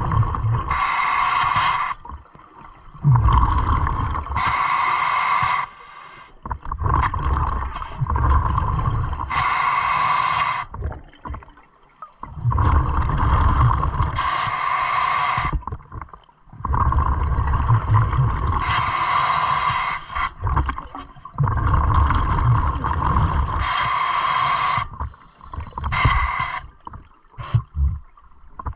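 Underwater scuba breathing through a regulator. Each inhalation is a hiss from the demand valve with a steady whistle in it, and each exhalation is a low rumble of bubbles. A breath comes every four to five seconds, about six in all.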